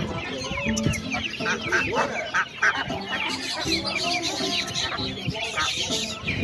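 Chickens clucking among a dense chorus of small cage birds chirping rapidly and continuously.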